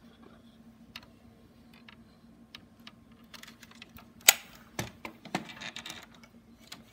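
Small clicks and taps of a diecast model pickup truck being handled, its opening doors and plastic parts clicking in the hands, with one sharp knock a little over four seconds in and a few softer knocks after as the model goes down on a tabletop.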